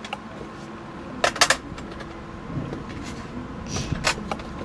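Plastic tangram pieces clicking against a plastic puzzle tray as they are set in place: a few short sharp clicks about a second in and two more near the end.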